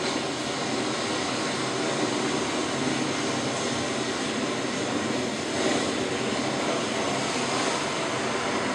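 Recorded sound effect of ocean waves: a steady rushing noise that swells briefly about five and a half seconds in.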